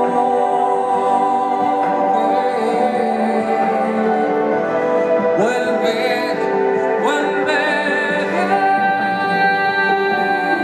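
A man singing a Spanish-language romantic ballad into a microphone over instrumental accompaniment. He holds long, wordless notes, with sliding vocal runs in the middle.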